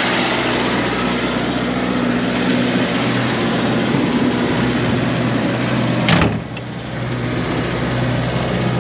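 Austin 7 Ruby's four-cylinder side-valve engine idling steadily, with the car's door shutting with a sharp knock about six seconds in.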